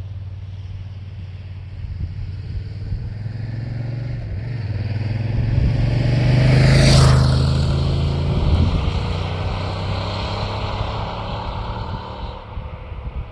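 Yamaha TRX 850 parallel-twin engine (270° crank) through its stock exhaust, approaching, passing close about seven seconds in, and fading away.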